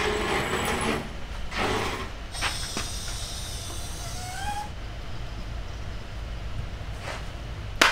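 Steel engine crane rolling on its casters over a concrete floor with an engine hanging from it, rattling in uneven surges during the first couple of seconds, then quieter, with a short rising squeak about four seconds in and a sharp click near the end.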